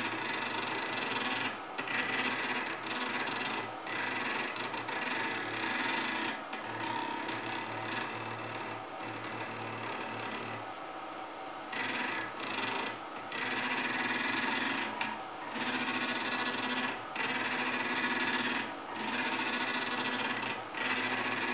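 Small stepper motor of a salvaged optical-drive laser sled, driven at speeds set by a moving mouse: a mechanical whir that starts and stops repeatedly, running in stretches of one to a few seconds with short pauses between.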